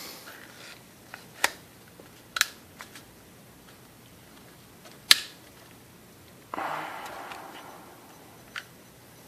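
Handling of a Glock 34's polymer frame, backstrap and pin with an armorer's tool: a few sharp clicks, the loudest about five seconds in, and a short scraping slide about six and a half seconds in.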